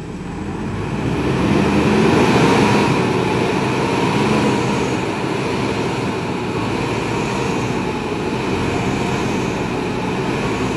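A vehicle engine running hard under load, swelling over the first two seconds and then holding steady, as the vehicle tries to climb a muddy, rain-slick slope.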